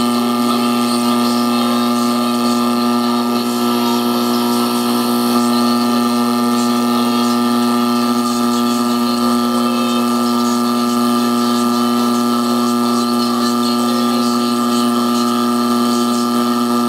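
LM386 breadboard amplifier with its potentiometer ungrounded and no audio input, sending a loud, steady, distorted buzz with hiss and crackle through its speaker. Ungrounded like this, the amplifier picks up stray signal and behaves as a very distorted radio. The sound cuts off suddenly near the end.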